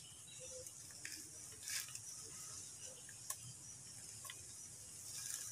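Faint rustling and a few short scattered clicks as gloved hands press potting mix around coleus cuttings in a lined wire hanging basket.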